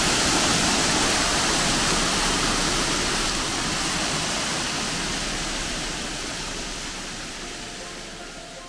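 Water rushing over a stone weir and a small waterfall on a brook: a steady, dense rushing that slowly fades away over the second half.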